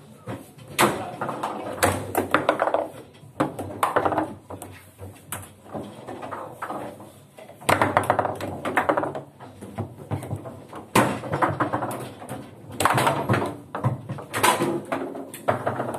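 Table football game in play: sharp clacks of the ball striking the plastic figures and the table, and of rods being snapped, coming in quick irregular clusters with short pauses between.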